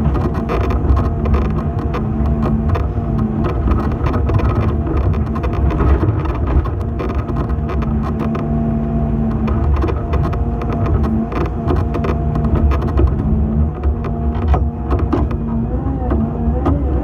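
Excavator diesel engine running steadily under work, heard from the cab, with a steady hum and a whine above it as the boom and bucket swing and scrape through roadside brush and soil.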